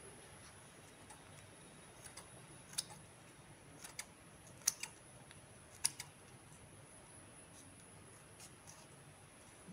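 Scissors snipping dried red chillies into a bowl: a few short, sharp snips at irregular intervals, bunched between about two and six seconds in.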